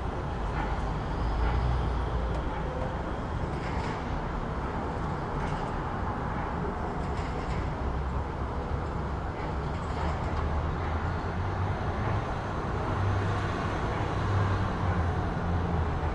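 City street ambience: steady traffic noise with a low rumble of passing vehicles that swells twice, with faint scattered clicks.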